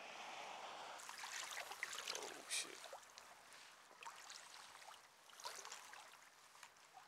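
Faint lapping of small wind-driven waves with scattered light splashes and drips close to the microphone, one slightly louder splash about two and a half seconds in.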